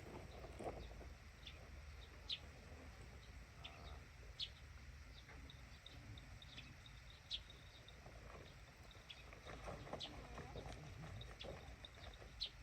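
Quiet outdoor ambience with a steady low rumble and scattered short, high bird chirps, about one every second or two.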